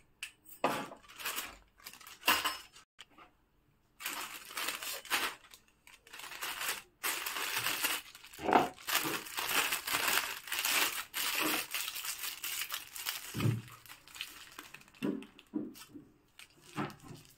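Disposable plastic piping bag crinkling and rustling as it is handled and filled with cream, with scrapes and light knocks of a silicone spatula against a plastic bowl. The rustling is densest and loudest in the middle stretch.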